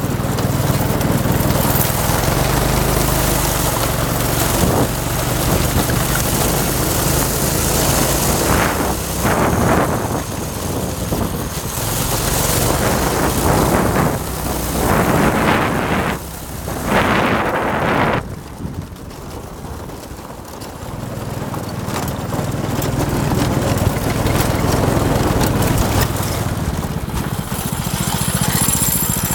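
Small go-kart engine running as the kart is driven over dirt, with bursts of wind rushing over the microphone through the middle. The engine goes quieter for a few seconds about two-thirds of the way through, then picks up again.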